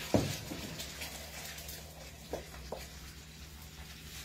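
A utensil knocking lightly against a frying pan of pizza sauce on the stove while it is stirred: a few short knocks, the loudest right at the start, over a low steady hum.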